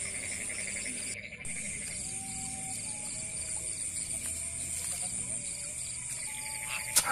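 Chorus of night insects: a steady high trill and a fast, pulsing chirp run on without a break, with faint scattered lower calls. A single sharp click comes near the end.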